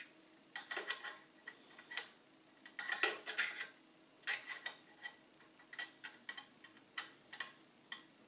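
Irregular light metallic clicks and taps as the Singer 401 sewing machine's needle plate and bed parts are handled and fitted back into place by hand, several clicks coming in quick clusters.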